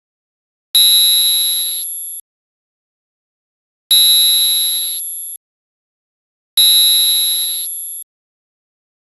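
Three high-pitched, chime-like ringing tones, each starting sharply, fading over about a second and a half, and then cutting off abruptly, with silence between them.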